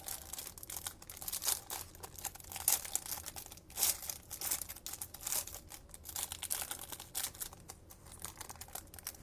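Plastic wrapping of a box of Panini Mosaic trading cards crinkling and tearing as it is opened by hand, a dense irregular crackle.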